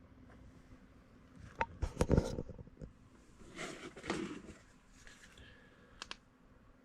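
Handling noises: a quick cluster of knocks and clicks about two seconds in, then rustling, and two sharp clicks near the end.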